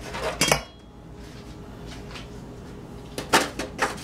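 Kitchenware clinking: a metal spoon and glass and stainless-steel bowls knocking together as they are picked up and handled, in two short clusters, about half a second in and again about three seconds in.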